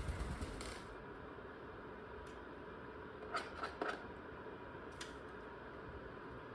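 Faint room tone with a steady hum. Cockatiels are moving about: a brief rustle right at the start, a few small scratchy sounds about three and a half seconds in, and a couple of light clicks.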